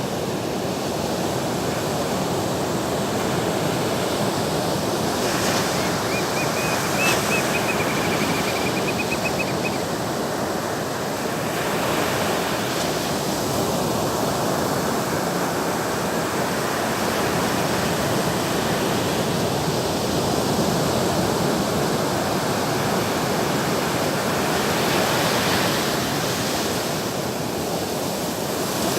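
Sea waves breaking and washing in, a continuous rushing that swells and eases every several seconds. A thin high warbling tone sounds for about three seconds, starting about six seconds in.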